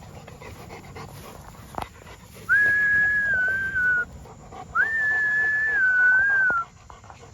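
Dog whining: two long, high-pitched whines, each about two seconds, the pitch dropping a little at the end of each.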